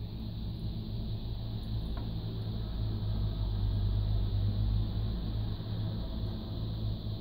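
A steady low hum or rumble, with a faint click about two seconds in.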